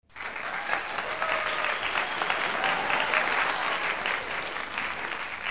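Applause sound effect: a crowd clapping steadily, starting abruptly.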